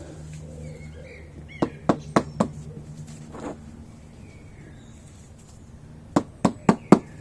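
A motorcycle fork dust seal being tapped down into the fork leg with a block of wood, in sharp knocks: four quick ones about a second and a half in, one on its own, then four more near the end. It is being knocked in because it will not clip in by hand. Faint bird chirps sound in the background.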